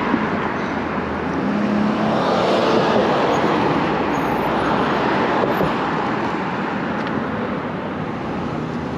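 City street traffic: a steady rush of tyre and engine noise that swells as a vehicle passes, about two to five seconds in, then eases off.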